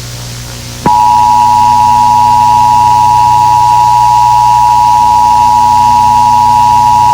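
Emergency Alert System attention signal: two steady tones sounding together just under 1 kHz (the standard 853 and 960 Hz pair). They start abruptly about a second in and hold loud and unchanging.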